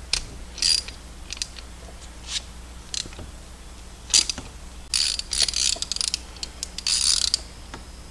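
Hand ratchet clicking as a fastener is tightened down. It makes scattered single clicks at first, then two quick runs of rapid ratcheting in the second half.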